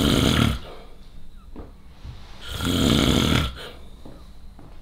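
A man snoring in deep sleep: two loud snores about two and a half seconds apart, with quiet breathing between them.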